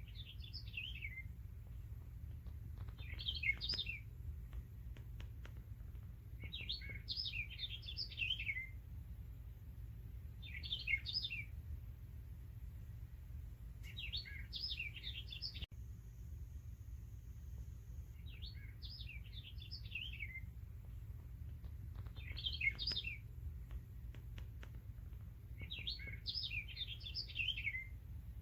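Songbird chirping phrases repeating every three to four seconds, apparently a looped nature-sound recording, the kind a sunrise alarm clock plays as a sleep sound. A steady low hum runs underneath.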